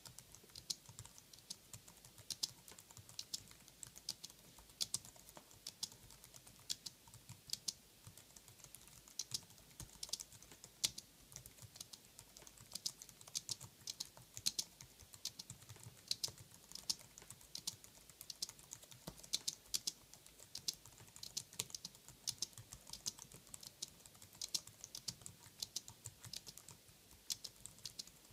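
Typing on a 2011 Apple Wired Keyboard with scissor-switch keys: a continuous, irregular run of quiet key clicks, several a second.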